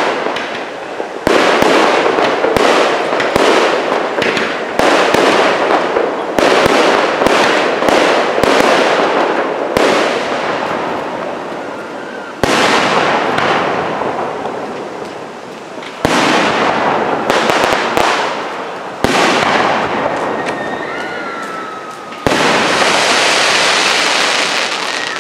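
Aerial firework shells bursting one after another, each sharp boom trailing off in a long echoing rumble and crackle. For the last few seconds a dense, steady crackling hiss of crackling stars fills the sound.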